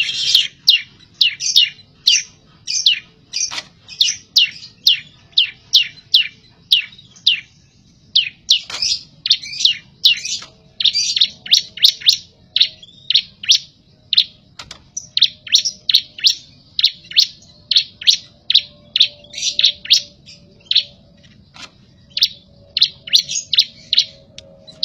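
A songbird singing nonstop in a rapid string of sharp, high chirps, about two to three a second, with a brief pause about eight seconds in.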